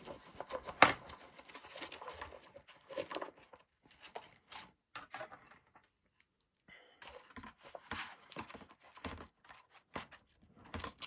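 Small hand-work sounds at a workbench: irregular clicks, scrapes and tearing rustles from handling parts and tools. There is a sharp click about a second in and a brief lull midway.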